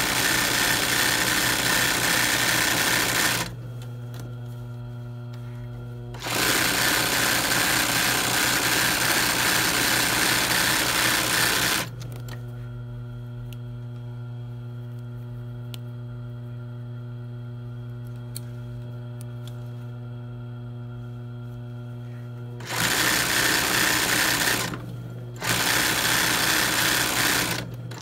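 A sewing machine stitches free-motion embroidery in four runs of a few seconds each, with stops between them. During the stops a steady motor hum carries on.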